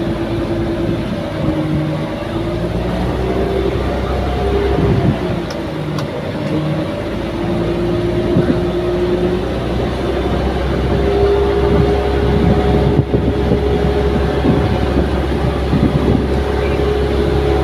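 Engine of a wooden outrigger tour boat (bangka) running steadily under way, a loud continuous drone with a note that wavers slowly up and down.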